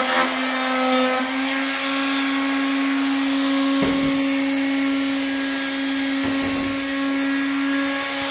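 A handheld electric power tool's motor running steadily at constant speed, a loud, even whine. Dull knocks come about four seconds in and again around six seconds in.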